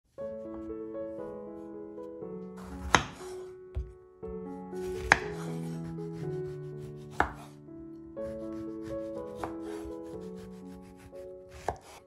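Kitchen knife chopping through an orange onto a wooden cutting board: about five sharp strikes a second or two apart, over steady background music.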